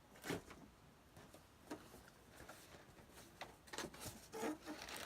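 A few faint, scattered scrapes and rubs of a pocket knife cutting into a large shipping package.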